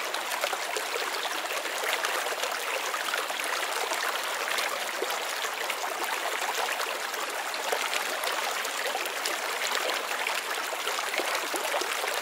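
Small creek running, a steady rush and trickle of flowing water.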